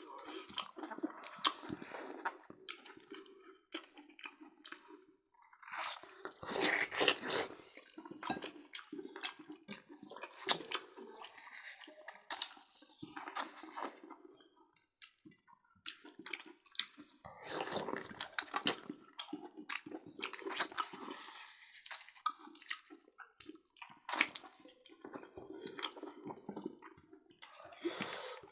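Close, wet mukbang eating sounds of people eating roast pork with their fingers: chewing, lip-smacking and sucking at meat and bone, with many irregular small clicks.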